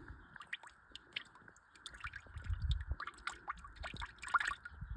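Used motor oil dripping and splashing into a drain pan: a run of small, irregular drips and plops.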